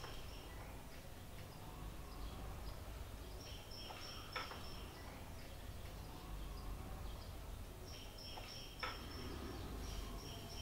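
Quiet ambience with a low hum and high, insect-like chirping trills that come and go in short stretches. Two sharp clicks sound a few seconds apart.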